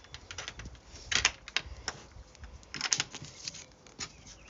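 Irregular light clicks and taps in small clusters, several over a few seconds, over a faint low rumble.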